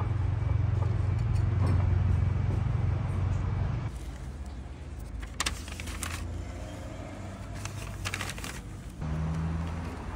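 A steady low motor hum of road traffic for about four seconds. Then, more quietly, paper bags are opened and handled, with two short crisp rustles.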